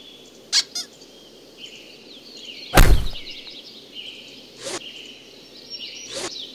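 Sound-designed desert ambience of steady high chirping, with one loud thud about three seconds in and two softer short knocks later on.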